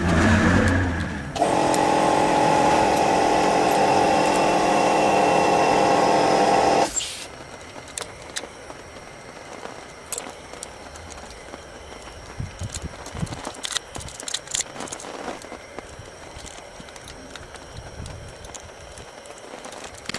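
A power tool runs steadily and loudly for about five and a half seconds, then cuts off abruptly. Scattered small metal clicks and clinks follow.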